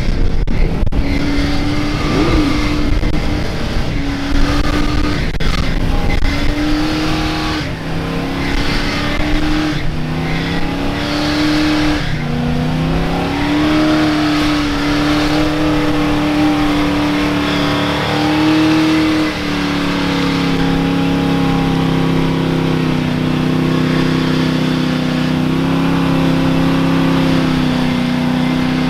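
A mud bog truck's engine revs hard under load, pushing through a mud pit. Its pitch climbs and drops in repeated short surges, then holds high, and settles into a steady lower drone about two-thirds of the way through.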